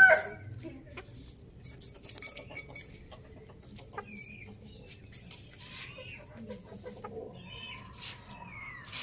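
Hens clucking softly, with scattered sharp taps of beaks pecking on concrete. A loud rooster crow trails off right at the start.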